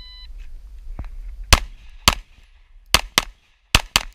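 A shot timer beeps once as the start signal, then a pistol fires six shots: two single shots about half a second apart, then two quick pairs near the end.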